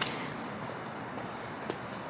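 Steady outdoor city background noise with faint footsteps at a walking pace, and a short hiss right at the start.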